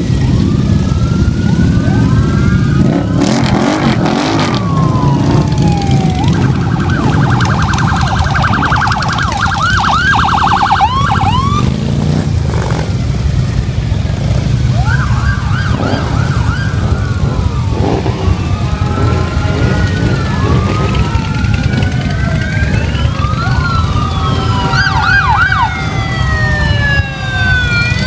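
A procession of Harley-Davidson V-twin motorcycles running past at low speed, a continuous deep engine rumble. Over it, sirens wail up and down and break into a rapid yelp about a third of the way in, with several overlapping near the end.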